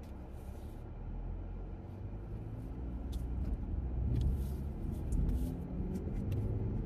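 Car cabin noise while driving: a steady low rumble of engine and road that slowly grows louder, with a few faint clicks.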